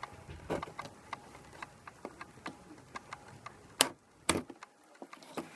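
Packaging of a boxed radio-controlled toy jeep being handled and opened: scattered light clicks and rustles, with two sharp snaps close together about four seconds in.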